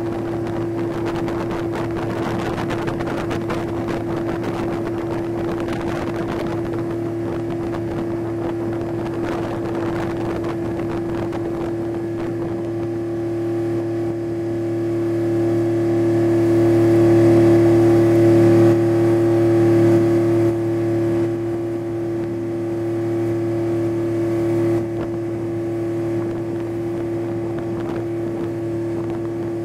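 Boat engine running with a steady, unchanging hum, with the rush of water and wind noise over it. The engine grows a little louder about halfway through, then settles back.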